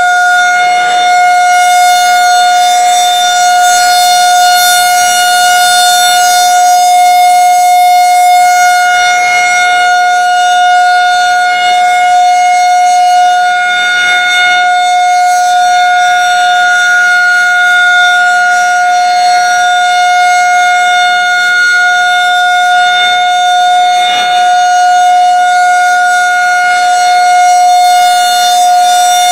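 Federal Signal 2001 rotating electronic outdoor warning siren sounding its steady Alert tone: one unwavering high pitch with no rise or fall. Its loudness swells and fades slightly as the horn turns toward and away.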